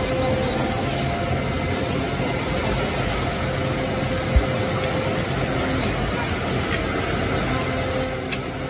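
Woodmaster three-head CNC mortising machine running: steady machine noise with a faint held tone, a single knock about halfway through, and a short burst of hissing near the end.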